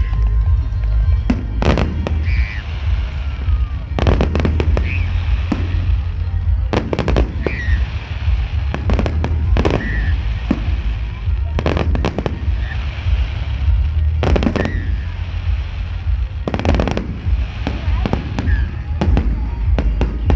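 Firework display: a long run of sharp bangs and crackling bursts, some coming in quick clusters, over a steady low rumble.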